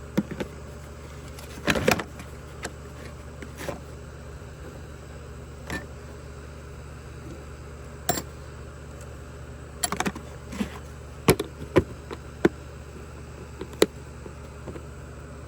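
Hand tools clicking and knocking as they are handled and packed into a small toolbox, in scattered single knocks with a quicker cluster in the second half, over a steady low hum.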